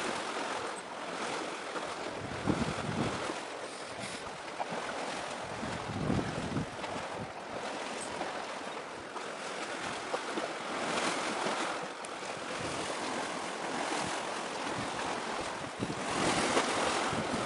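Sea waves washing in with wind buffeting the microphone, an even rushing noise that swells louder a few times.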